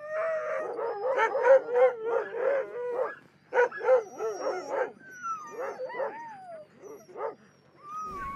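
Several husky-type dogs barking and yelping in quick, overlapping bursts, followed by a few long, falling whines and yowls.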